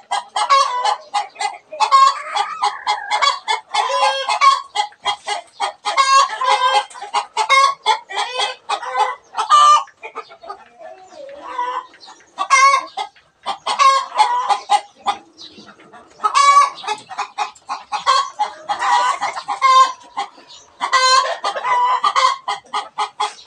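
Chickens clucking in a near-continuous run of short, rapid calls, easing off briefly about ten seconds in.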